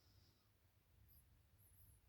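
Near silence: quiet room tone in a pause between a sleeper's snoring breaths, with only a faint low hum.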